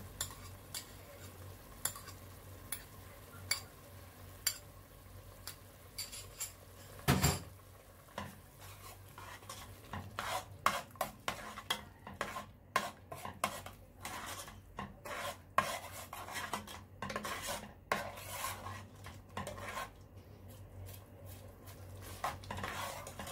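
A metal spoon tapping against dishware about once a second, a single louder knock, then a metal ladle stirring thick tomato sauce in an aluminium pot, clicking and scraping against the sides and bottom in quick strokes.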